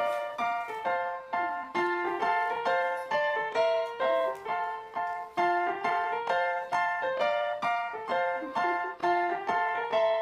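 Background music: a light melody of short, evenly paced notes running throughout.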